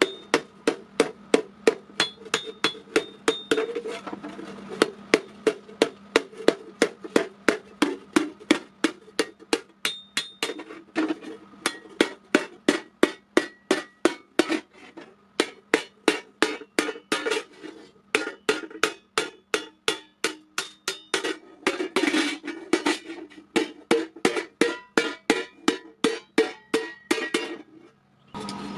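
Hand hammer beating a thin iron plate on a block, shaping a thali: a steady run of sharp metallic blows, about three a second, stopping shortly before the end.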